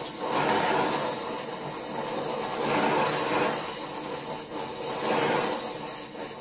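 Hissing flame of a Donmet 132A micro gas-welding torch working on steel with filler wire. The noise swells and eases every couple of seconds.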